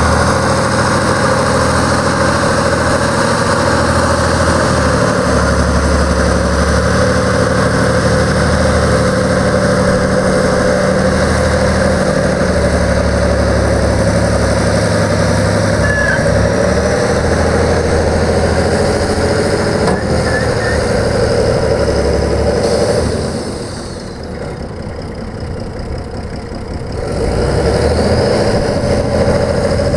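Deutz F6L912W air-cooled six-cylinder turbo diesel of a Getman A200 lube truck, running steadily. The sound drops off for a few seconds about three-quarters of the way through, then comes back up.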